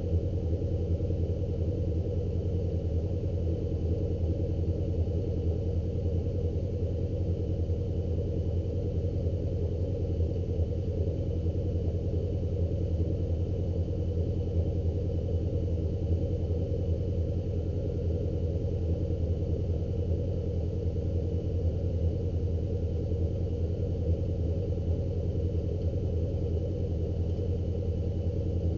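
An engine idling steadily and evenly, with a deep, unchanging hum that does not rise or fall.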